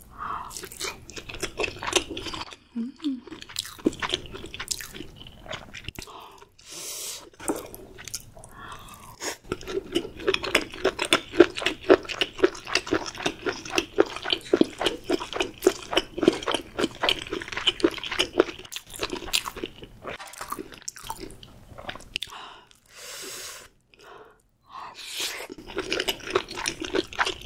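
Close-miked chewing, with crunchy bites and wet, sticky mouth sounds. In the middle comes a long run of rapid, regular clicking chews, broken by short pauses near the end.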